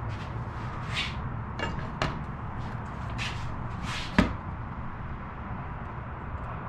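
A square being set and handled against a bare aluminium wing spar: a few short scrapes and one sharp click a little after four seconds in, the loudest sound.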